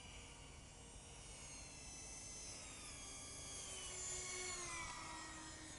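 Whine of the four electric ducted fans on a model airplane, several high tones together gliding down in pitch, loudest about four seconds in as the plane passes low.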